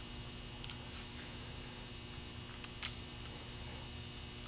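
A few small clicks of a Ford alternator brush holder and voltage regulator being handled and seated together by hand, the loudest a little under 3 seconds in, over a faint steady hum.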